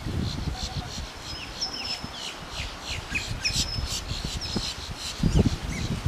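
Many high, thin bird chirps and short downward-sliding calls in quick succession, with a few brief high notes each held about half a second. A low rumble comes in near the end.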